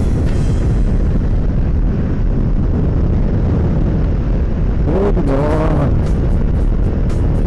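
Wind buffeting the microphone over a motorcycle running at road speed, a loud, steady low rumble. About five seconds in, a short wavering pitched sound rises and falls for about a second.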